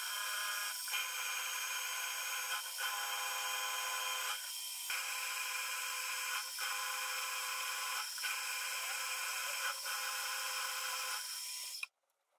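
Benchtop milling machine cutting a knurled metal disc: a steady spindle whine over the scrape of the cutter through the metal. The sound dips briefly every second or two and cuts off suddenly near the end.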